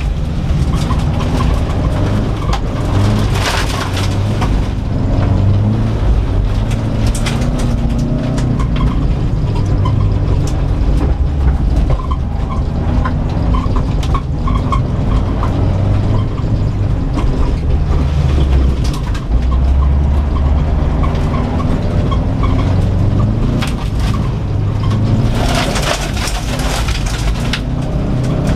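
Inside the cabin of a 2004 Subaru Impreza WRX STI at full effort on a dirt rallycross course: its turbocharged flat-four engine revving up and down through the gears, with gravel and mud rattling against the underbody. The rattle is heaviest about four seconds in and again near the end.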